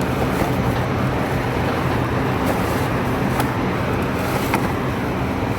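Steady drone of rooftop air-conditioning units running, with a constant low hum and a few faint clicks about halfway through.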